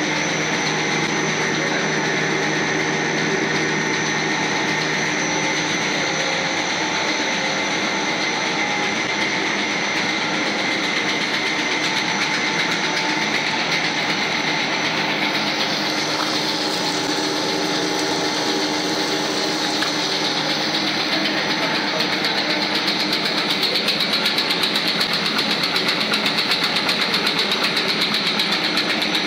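Twin-screw food extruder line for cream-filled snacks running: a steady mechanical hum and whine with several fixed tones over motor and gear noise. It grows louder and pulses quickly in the last few seconds.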